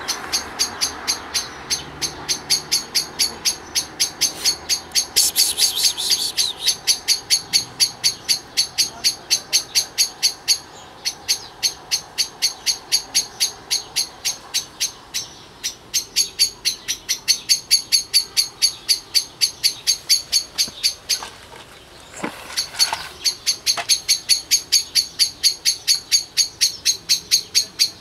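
A high chirp repeated evenly, about three or four times a second, with a short break about three quarters of the way through.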